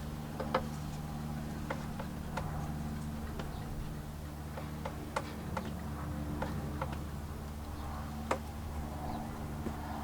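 Scattered light clicks and taps, irregular, roughly one every half second to a second, over a steady low hum; the sharpest clicks come about half a second in and about eight seconds in.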